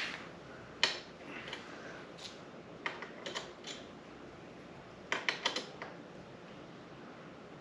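Scattered sharp clicks and taps of metal tools and small bike brake parts being handled, with a quick run of clicks about two thirds of the way through, over a steady air-conditioner hum.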